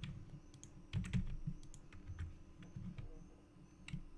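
Computer keyboard keystrokes: an irregular scatter of sharp clicks and dull taps as shortcut keys are pressed.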